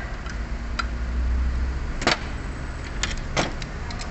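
Hand tools clinking on metal while fittings on a steering rack are tightened: a few light clicks and two sharper clinks, about two seconds in and about three and a half seconds in, over a low steady rumble.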